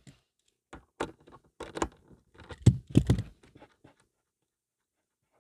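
A run of short clicks, rattles and rustles of hands handling a wire and tools at a car's ground bolt, busiest about three seconds in, then stopping.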